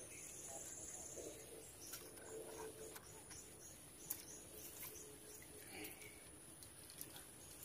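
Near-silent outdoor ambience: a faint steady high-pitched hum with a few small clicks.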